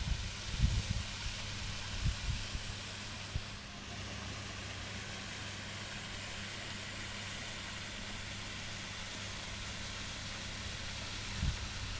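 Steady outdoor background noise: an even hiss with a low steady hum beneath it, and wind buffeting the microphone in gusts during the first few seconds and once more near the end.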